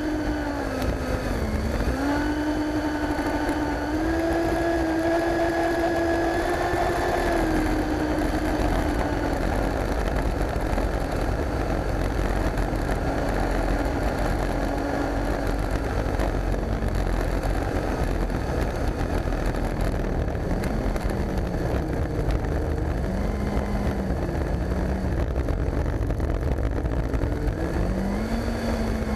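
Electric ducted fan of a foam RC F-16D model jet whining at low throttle while it taxis, the pitch dipping and rising a few times with the throttle, picked up by the onboard camera over a steady low rumble.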